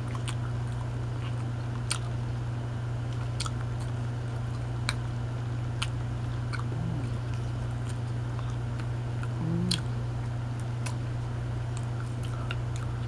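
A person chewing and biting a bread roll with chocolate spread, with scattered sharp crunches and mouth clicks and a couple of brief low hums through the mouth. A steady low electrical hum runs underneath.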